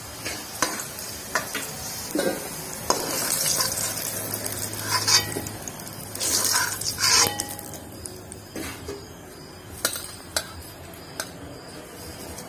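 A steel ladle scraping and clinking against an aluminium wok and a metal plate as fried potato pieces are lifted out of hot oil, the oil sizzling. The clatter and sizzle thin out after about eight seconds, leaving a few scattered clinks.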